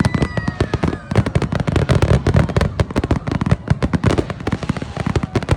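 Fireworks going off in a rapid, continuous crackle of pops and bangs, with a whistle falling slightly in pitch during the first second.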